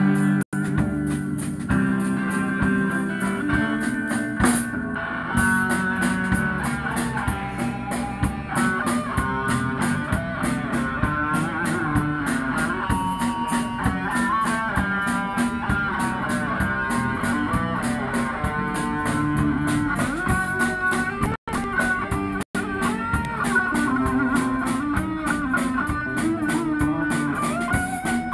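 A street band playing live: two electric guitars over a drum kit, with steady drum strokes throughout. The sound cuts out for an instant three times.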